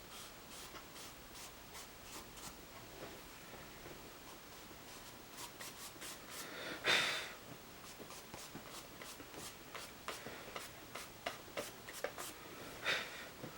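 Pastel pencil strokes scratching and rubbing on the textured vellum surface of mixed media paper, a run of soft short scratches, with one brief louder hiss about seven seconds in.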